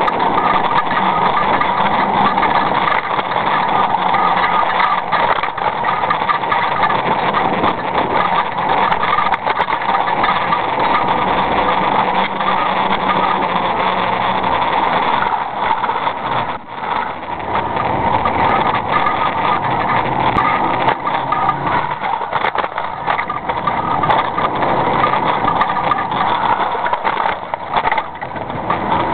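Steady running and rolling noise of a small wheeled vehicle moving along a paved street, picked up close to its wheel, with a brief dip a little past halfway.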